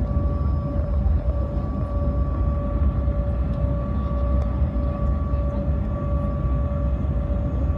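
Jet airliner cabin noise while taxiing: a steady low rumble with an even, high engine whine.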